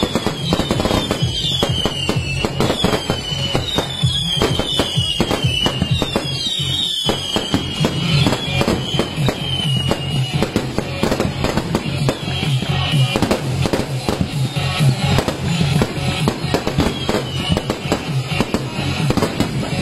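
Fireworks going off in a dense, continuous crackle of rapid bangs. Through the first half, a series of falling whistles repeats about once a second.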